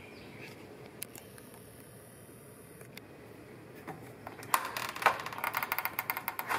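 A dragonfly on brick paving, its wings fluttering and clattering against the brick. After a faint background, this comes as a rapid, rattling run of ticks over the last two seconds or so.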